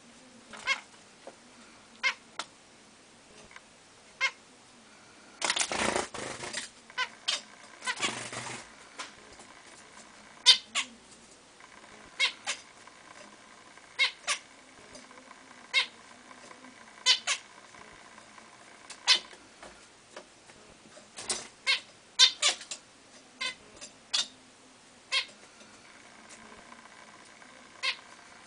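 Zebra finches calling: short, nasal calls scattered irregularly, a couple of dozen in all, with two brief bursts of rustling noise about six and eight seconds in.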